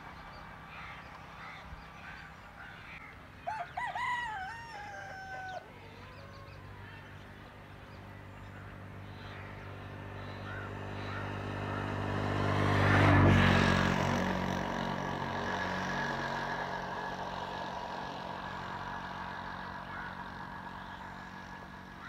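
A rooster crows once, a few seconds in. Then a vehicle's engine drones, growing louder to a peak a little past the middle as it passes and fading away afterwards.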